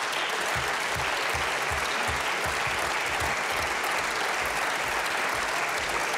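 Steady applause from a hall full of seated parliamentarians clapping.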